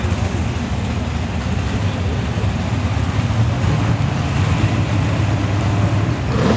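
Drag race car's engine idling loudly and steadily, with a quick rev rising in pitch near the end.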